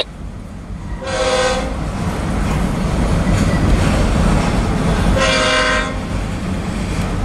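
Autorack freight cars rolling past with a steady low rumble and clatter of wheels on rail. Two short blasts of a locomotive horn chord sound over it, about a second in and again about five seconds in.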